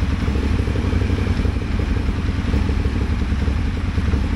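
A motorcycle V-twin engine, with horizontal and vertical cylinders, idling with a stumbling misfire. The misfire is on the horizontal cylinder, and the oscilloscope trace shows it is a combustion failure from a bad spark plug, not a bad coil.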